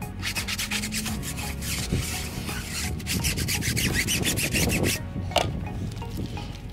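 Stiff brush scrubbing a foam-soaked tire and wheel: rapid back-and-forth rasping strokes, several a second, easing off about five seconds in.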